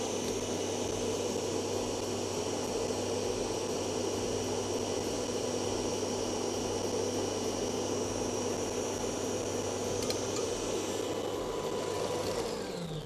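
Electric stand mixer whisking cake batter with a steady motor hum and whine, then switched off near the end, its pitch falling as the motor spins down.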